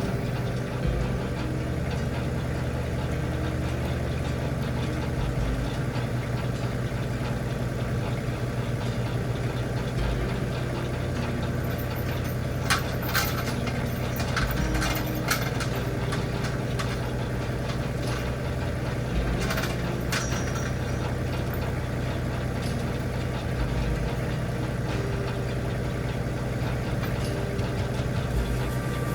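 A tractor engine running steadily at idle, with scattered clanks and rattles around the middle.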